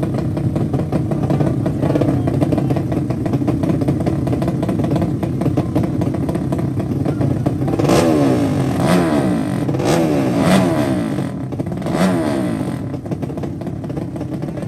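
Drag-racing motorcycle engines running loudly, then revved hard several times in quick succession, each rev a sharp rising and falling surge, before settling back.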